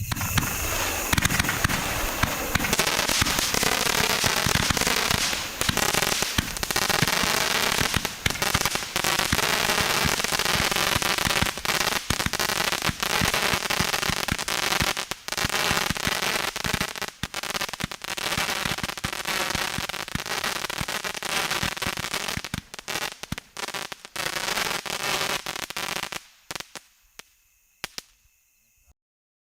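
Roman candle firing: a dense, continuous crackling and popping of effects bursting, which thins to a few scattered pops about 26 seconds in and then stops.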